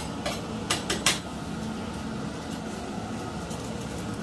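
A kitchen knife scraping and tapping against a cutting board a few sharp times in the first second, knocking ingredients off the board into the frying pan of sambal. After that, a steady low hum with a few faint ticks.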